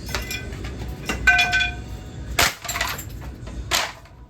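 Glass being smashed: three sharp crashes about a second and a quarter apart, with clinking shards and a brief ringing tone after the first.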